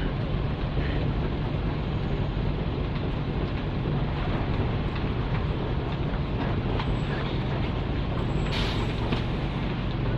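Interior running sound of an Isuzu K-U31L route bus with its PE6H diesel engine and DD5M rod-shift manual gearbox, the engine running at a steady pitch under way. A short hiss comes about eight and a half seconds in.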